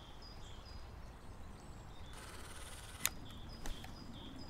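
Quiet woodland ambience with faint, short bird chirps. About two seconds in, a high rustling hiss sets in, with a sharp click about a second later.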